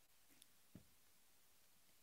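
Near silence: room tone, with one faint click about three quarters of a second in.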